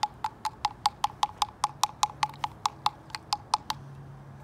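Steady, evenly spaced clicking, about five clicks a second.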